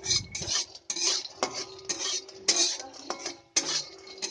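Metal spatula scraping and stirring peanuts around a kadai as they roast, in repeated short strokes about twice a second.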